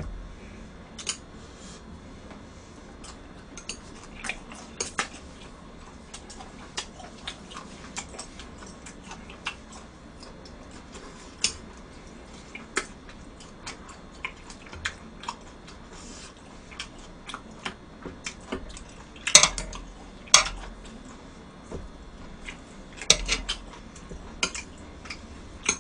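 Metal chopsticks clicking and scraping against a ceramic plate in irregular light taps, with a few louder clatters of dishware later on.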